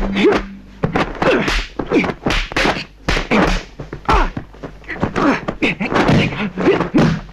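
Kung fu film fight sound effects: a rapid run of punch and kick whacks and thuds, several a second, mixed with the fighters' short grunts and shouts.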